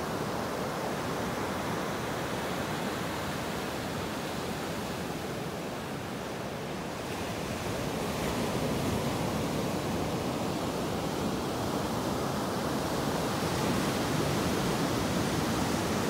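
Ocean surf breaking and washing up a sandy beach: a steady rushing wash of waves that swells a little after about eight seconds.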